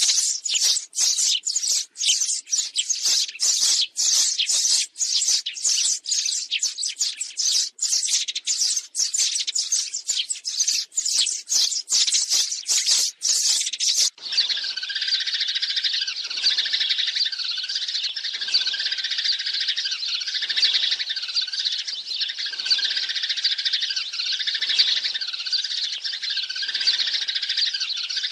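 A flock of sparrows chirping and chattering continuously: a recorded sparrow lure call for calling a flock in. About halfway through, the sound switches abruptly from rapid separate chirps to a denser, steadier chatter.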